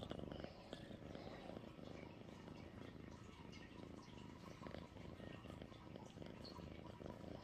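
Tabby kitten purring steadily.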